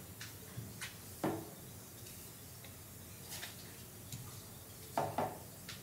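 A few faint, scattered clicks of small pistol parts being handled, as the freshly lubed loading nozzle of a gas blowback airsoft pistol is worked back and snaps forward.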